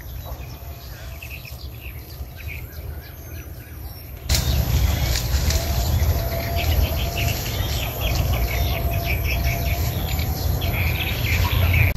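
Birds chirping and calling over a steady high insect drone. About four seconds in, the sound suddenly gets louder, with a low wind rumble on the microphone under denser chirping.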